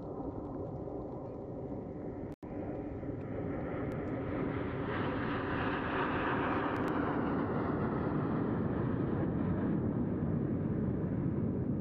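Jet engine noise of the Red Arrows' formation of BAE Hawk T1 jets flying past, swelling as they approach and staying loud, its higher part dropping in pitch as they pass. A brief cut to silence about two seconds in.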